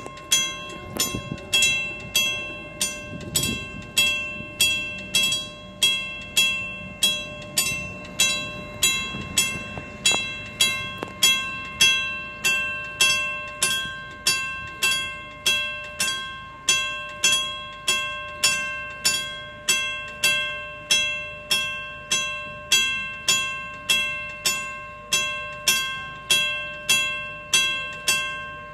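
Railway level-crossing warning bell ringing over and over, about three strikes every two seconds, each strike ringing out before the next. It is the crossing's warning that a train is approaching.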